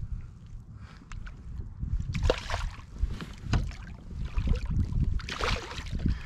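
A hooked striped bass splashing at the water's surface beside a kayak, in bursts about two seconds in and again around five and a half seconds in. Wind rumbles on the microphone throughout.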